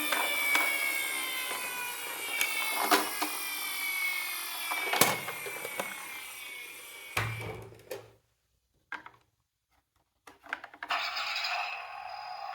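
Miniature toy car's gearing whirring with several tones that slowly drop in pitch, with scattered clicks and knocks. A thump comes about seven seconds in, then a brief pause, then scraping and rubbing as the toy is handled.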